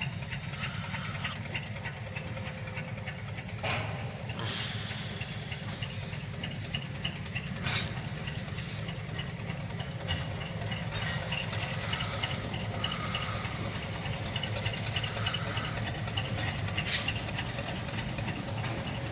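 An engine idling, a steady low rumble heard from inside a car, with a few short knocks or clicks.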